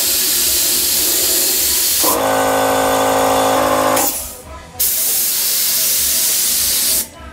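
Air-powered paint spray gun hissing as it sprays paint: one long burst that stops about four seconds in, then a second burst of about two seconds after a short pause. For the last two seconds of the first burst, a steady pitched hum sounds along with the hiss.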